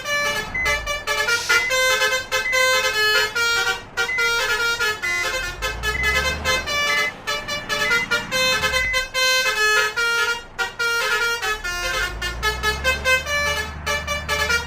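Basuri 'telolet' multi-tone bus horn playing a fast melody of short notes, several a second. A low engine rumble swells and fades twice underneath.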